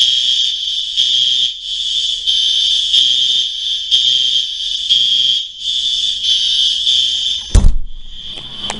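Apartment building fire alarms sounding, loud, a high-pitched pulsing tone. A heavy thump cuts through near the end.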